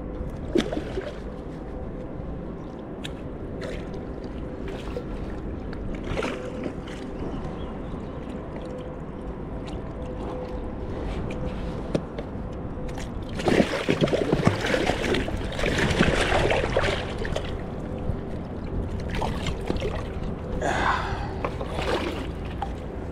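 Water splashing hard for about four seconds as a hooked wels catfish thrashes at the side of a small boat while it is landed. Before it, scattered light clicks and steady water lapping; a shorter splash or breathy burst follows near the end.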